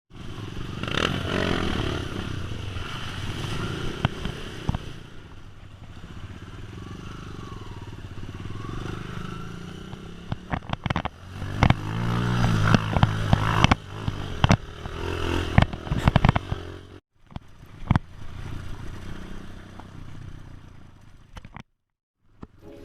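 Trail motorcycle engines running and revving, with clattering and scraping, in short clips cut together with abrupt breaks.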